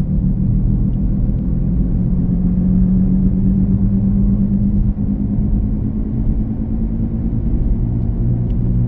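2017 Chevy Equinox on the road, a steady low growling hum over the tyre and road noise. The owner takes the growl for a failing rear wheel bearing, on the driver's side.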